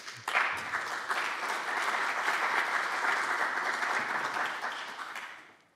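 Audience applauding, beginning suddenly and fading out near the end.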